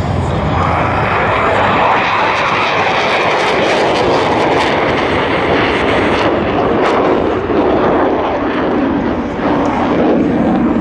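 Blue Angels F/A-18 Hornet jet roaring past overhead, its twin turbofans a loud continuous roar that sinks gradually in pitch as it moves away.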